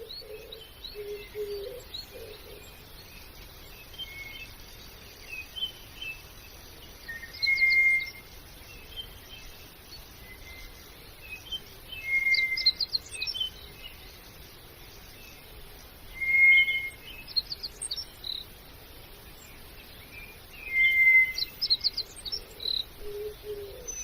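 Birds singing over a faint background hiss: one bird repeats the same phrase about every four to five seconds, a short steady whistle followed by a quick burst of higher notes. Lower calls are heard near the start and again near the end.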